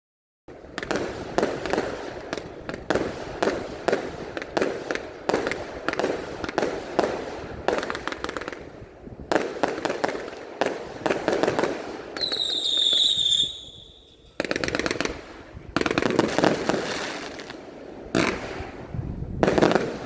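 Fireworks going off one after another in a continuous run of bangs and crackles. A short high whistle sounds about twelve seconds in.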